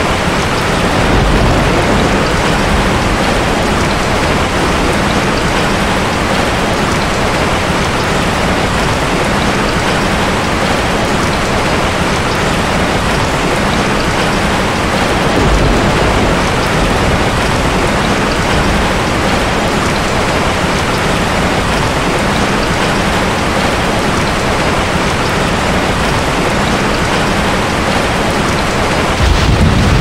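Steady rain, a dense even hiss of falling drops. Low rumbles of thunder swell up about a second in, midway through, and again near the end.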